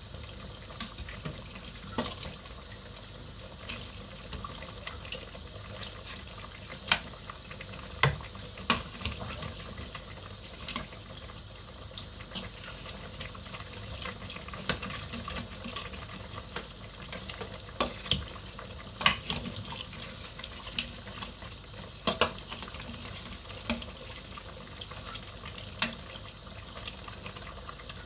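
A spoon and ladle knocking and scraping against metal stock pots as meat is stirred in a simmering stew, a sharp clink every few seconds over a steady bubbling hiss.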